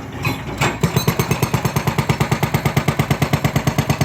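Demolition hammer pounding rapidly and steadily, about eight blows a second, starting about a second in.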